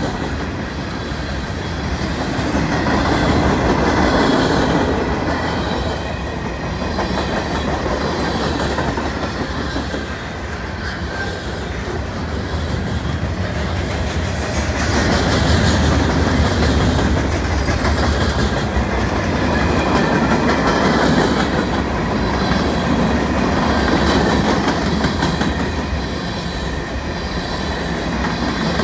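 Freight cars of a CN freight train rolling past close by: a steady rumble and clatter of steel wheels on the rails, swelling and easing every few seconds.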